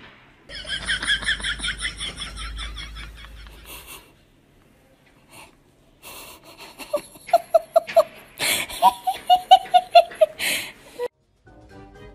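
Human laughter: a run of rapid, high-pitched giggling, then after a pause two bouts of quick, rhythmic 'ha-ha' laughing.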